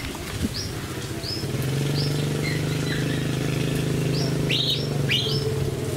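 Small birds chirping: one short high note repeated over and over, more than once a second, with a few louder calls near the end. Under them, a steady low hum begins about a second and a half in.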